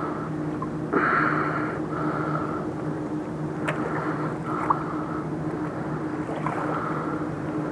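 A steady low engine drone, like a boat motor running on the river, with short higher rushing noises coming and going and one sharp click about halfway through.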